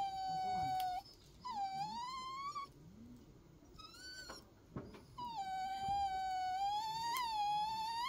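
Schnauzer whining in long, high-pitched whimpers: one trails off about a second in, a shorter rising one follows, a brief squeak comes near the middle, and a long whine runs from about five seconds on.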